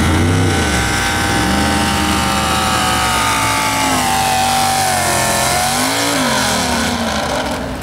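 Super stock two-wheel-drive Chevrolet pulling truck's engine running at high revs under full load as it drags the weight sled, its pitch surging and dipping several times.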